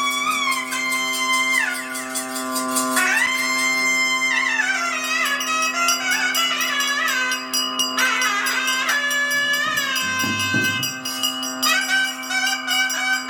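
Traditional ritual music: a reed wind instrument plays a melody that slides between held notes over a steady unbroken drone, with quick percussion strikes throughout.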